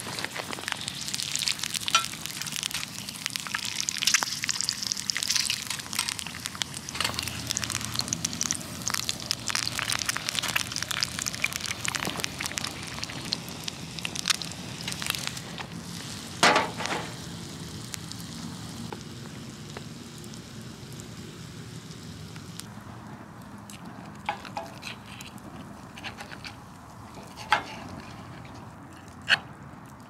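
Egg and sausages sizzling and popping in a skillet over a wood fire, a dense crackling hiss that thins out over the last several seconds. A louder knock comes about halfway through, and a few sharp clicks near the end.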